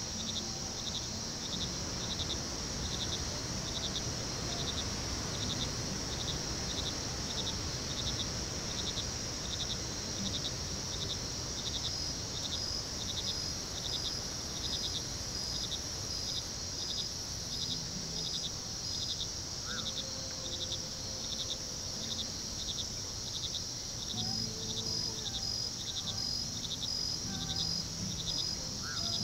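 Crickets chirping: a steady high trill with a regular chirp about one and a half times a second, and a second, faster-pulsing chirp that joins about twelve seconds in, drops out, and returns near the end.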